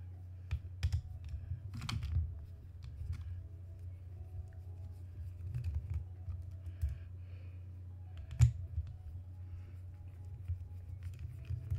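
Scattered small clicks and taps of a screwdriver and small metal parts as an airsoft AEG gearbox is taken apart, with one sharp click about eight and a half seconds in, over a steady low hum.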